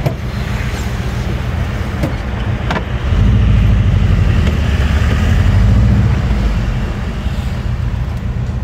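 Volkswagen Kombi van's engine running while it drives, heard from inside the cab with road noise. The engine rumble gets louder about three seconds in and eases back after about six seconds.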